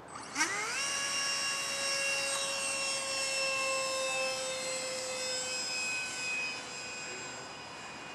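The 70mm electric ducted fan of a foam RC F-16 jet spools up with a quick rising whine about half a second in, then holds a steady high whine with many overtones as the model is hand-launched and flies away. The whine grows fainter over the last couple of seconds.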